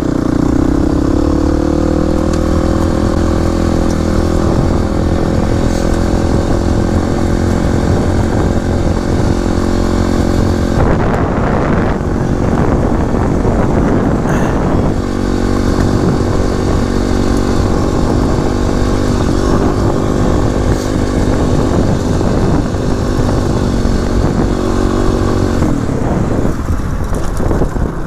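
Kawasaki KLX300's single-cylinder four-stroke engine running at a steady, even throttle, its pitch settling about a second in. A rougher, noisier stretch breaks in around the middle, and the engine note drops away near the end.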